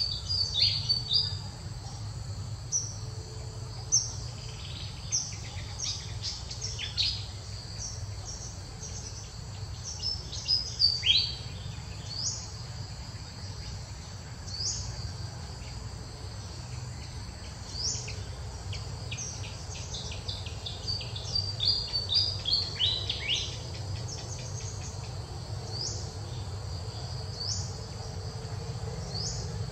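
Steady high insect drone with repeated short, high bird calls that sweep downward, coming in quick runs about a second in, around eleven seconds in and again around twenty-one to twenty-three seconds in, over a steady low rumble.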